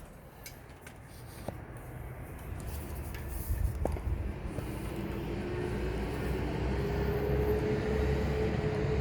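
Low rumble of an approaching vehicle growing steadily louder, with a steady hum coming in about halfway through and two faint clicks in the first half.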